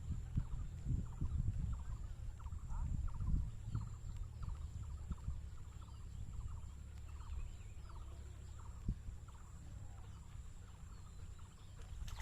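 Short animal calls repeating a few times a second, over low thumps and rumble that ease off after about four seconds.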